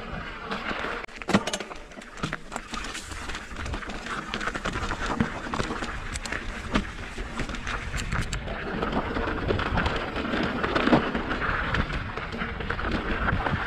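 Mountain bike riding over a rocky dirt trail: tyres crunching on gravel and stones, with a steady rushing noise and many sharp knocks and rattles as the bike goes over rocks, the loudest about a second in and again near the end.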